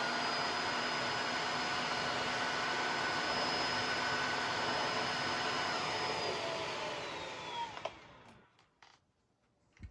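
Wet-dry floor cleaner running steadily, its motor giving a steady whine over a noisy rush. It is switched off about six seconds in, the whine falling in pitch as it winds down to a stop. A couple of faint clicks come near the end.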